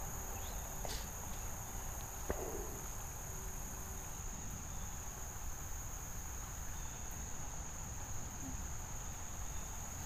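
Steady high-pitched insect chorus, a constant trill that does not change through the whole stretch, with a faint tick about two seconds in.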